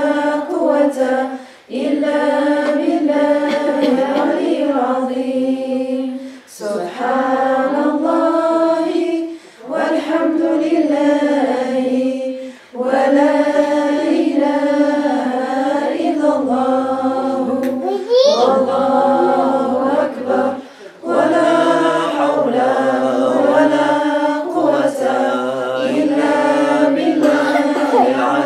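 Mixed voices of a small group chanting a dhikr together in unison, unaccompanied, in long melodic phrases with short pauses between them.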